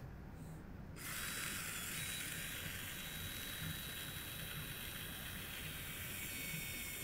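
Cordless ratcheting cable cutter running as its jaws close through a 15 kV concentric neutral cable. A steady motor whine starts about a second in and carries on until near the end.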